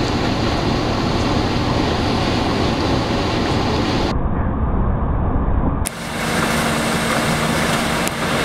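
Cabin noise inside a moving bus on a highway: steady engine and road rumble. About four seconds in it turns thinner and duller for under two seconds. It then returns with a steady low hum under the road noise.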